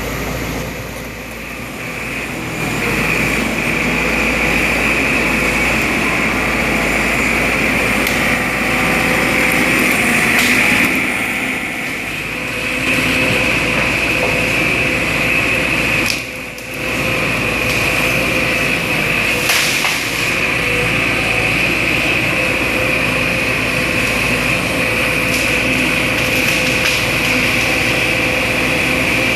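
Sumitomo SH210 hydraulic excavator's diesel engine running steadily under work, with a constant high whine over it. The sound drops off briefly a little past halfway, and there are a few faint knocks.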